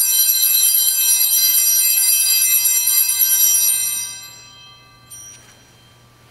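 Catholic altar bells (sanctus bells) rung at the elevation of the chalice after the consecration: a bright, jangling ring of many high tones that holds steady, then fades about four seconds in, with one short extra ring about a second later.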